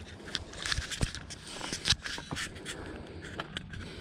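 Footsteps on dry grass and dirt with rustling and scraping, broken by irregular sharp clicks and a louder knock about two seconds in.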